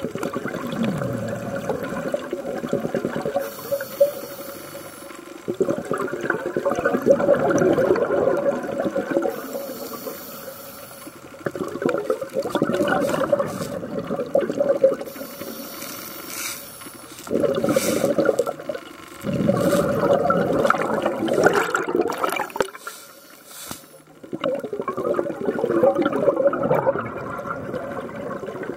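Heard underwater: a scuba diver's breathing, with exhaled bubbles rushing and gurgling from the regulator in about six bursts, each one to four seconds long, and quieter inhalations in between. A faint steady tone runs underneath.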